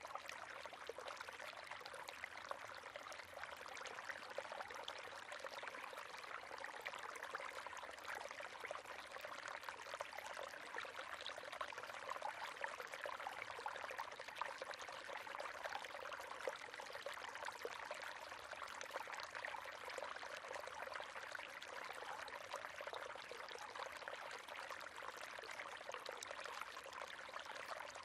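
River water flowing and splashing steadily, a continuous rush with fine bubbling detail and no breaks.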